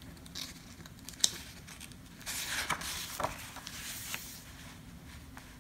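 A page of a picture book being turned by hand: a sharp tap about a second in, then paper rustling and crinkling for about two seconds, with a few light taps as the page settles.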